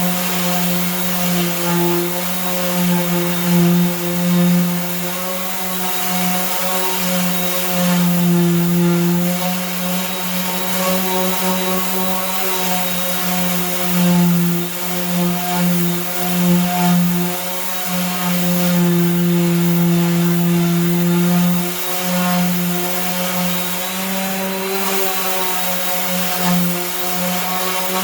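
Power sander running steadily, sanding cured body filler on a truck fender with 80-grit paper; its motor hum holds one pitch while its loudness rises and dips a little as the sanding goes on.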